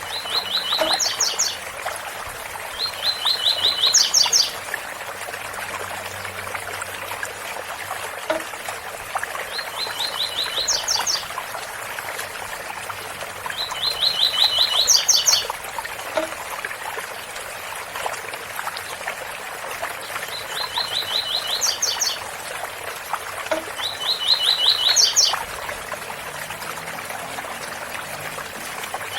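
Double-collared seedeater (coleiro) singing its 'tui-tui bitola' song six times, each phrase a fast run of notes ending in a few quick rising whistles, over the steady rush of a waterfall.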